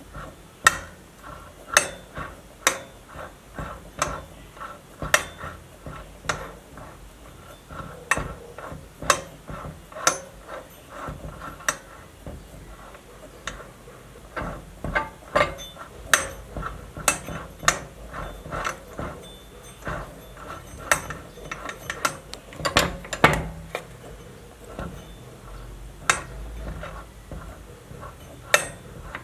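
Safe lock being worked: a long series of sharp mechanical clicks at irregular spacing, about one or two a second, with a quick cluster of clicks a little over twenty seconds in.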